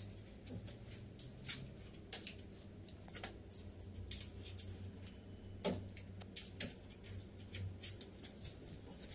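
Irregular sharp metal clinks and scrapes as brake pad parts and the steel mould of a hydraulic brake pad press are handled by hand, over a steady low hum.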